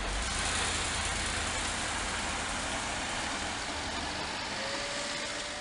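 Steady vehicle noise with a low engine hum beneath it.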